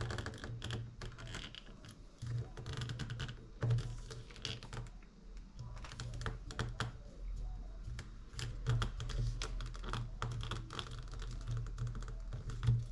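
Irregular small clicks and taps of small plastic and metal model-kit parts and screws being handled during assembly, over a low steady hum.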